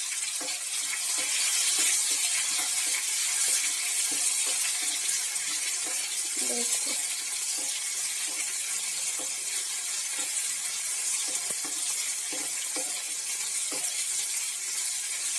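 Chopped onion and tomato sizzling in hot oil in a nonstick kadai, a steady hiss, with light scrapes as a spatula stirs them.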